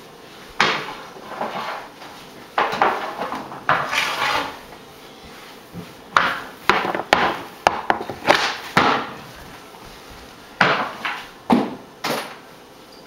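Hockey stick blade knocking and scraping on a hardwood floor as shots are taken, in several bursts of sharp wooden clacks and scrapes separated by short pauses.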